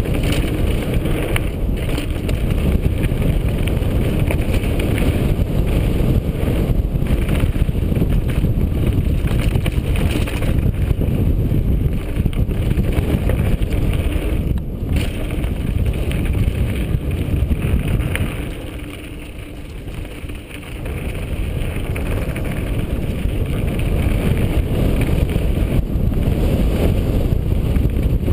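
Wind buffeting the microphone of a bike-mounted action camera on a fast mountain-bike descent over a loose, stony trail, with the bike rattling and knocking over the rocks. The noise eases for a couple of seconds past the middle, then comes back.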